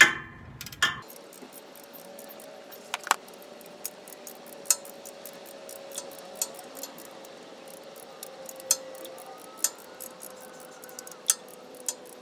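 Scattered metallic clinks and taps of a wrench on a torque converter bolt as the bolt is worked loose and taken out from the flexplate. There is a sharp clank right at the start and another about a second in, then irregular clicks about once a second over a faint steady hum.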